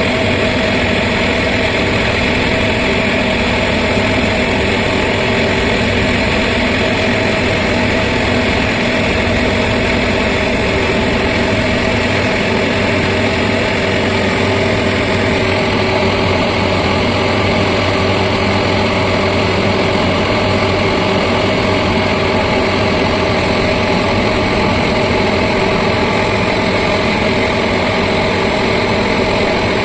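Heavy construction machine's diesel engine running steadily at a constant speed, loud and close, with no change in revs.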